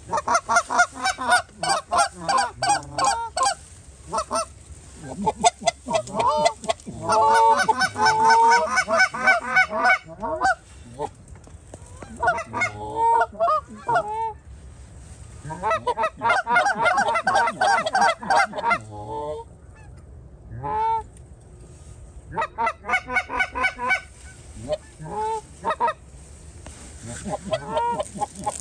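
Canada goose honking and clucking: loud runs of rapid, pitched honks in several bouts, with single calls scattered between them.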